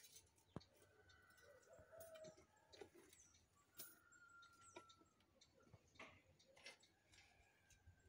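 Faint, scattered clicks and ticks of steel tie wire and rebar being handled and twisted as a rebar mat is tied, with chickens faintly clucking in the background.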